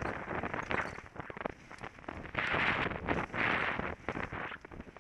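Downhill mountain bike rattling and clattering over a rough dirt trail, many quick knocks from the frame and chain, with tyre and wind hiss on the helmet-mounted microphone that swells twice around the middle.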